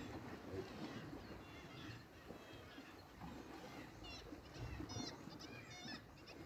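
Birds calling: a scatter of short, high chirping calls that come thickest in the last two seconds, over a low background rumble.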